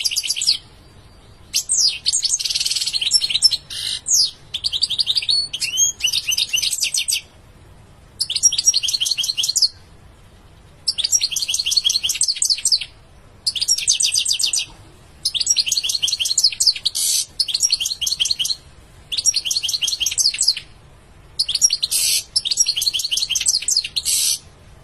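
European goldfinch singing: a series of fast, rapidly repeated high notes in phrases of one to three seconds, broken by short pauses.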